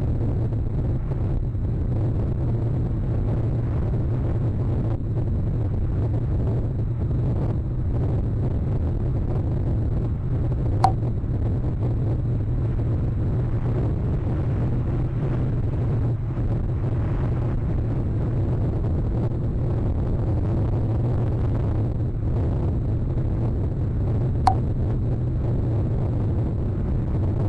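Strong wind buffeting the nest camera's microphone in a storm: a steady low rumble, with two short sharp clicks about fourteen seconds apart.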